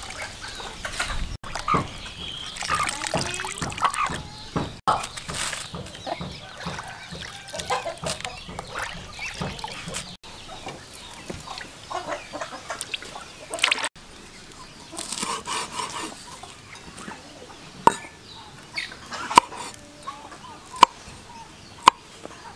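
Chickens clucking, over the rustle of grasshoppers being handled in a plastic basin, then a pour of cooking oil into a metal wok. Over the last few seconds a cleaver chops chillies and lime leaves on a wooden chopping board: four sharp knocks, about one and a half seconds apart.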